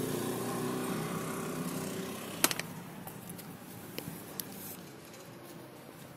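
Hand handling of a car's rubber door weatherstrip as it is pulled back and pressed over a wire: one sharp click about two and a half seconds in and two light knocks a little later. Under it is a faint hum that fades over the first few seconds.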